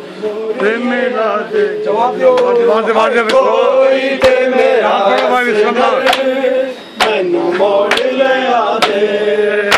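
A group of men chanting a Punjabi noha (mourning lament) in unison, one voice leading the held notes, with sharp slaps of matam chest-beating about once a second from about four seconds in.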